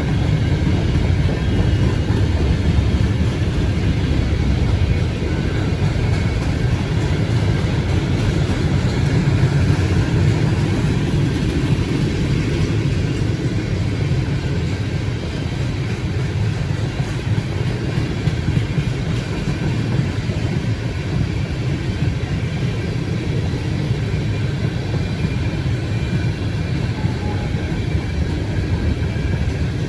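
Long freight train rolling steadily past on the main line, its cars loaded with steel coils, with the continuous noise of wheels on rail.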